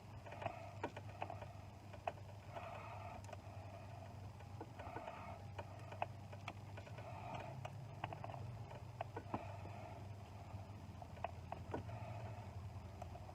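Electrical tape being pulled off the roll and wrapped around spliced wires: short rasping pulls again and again, with small handling clicks and a low steady hum underneath.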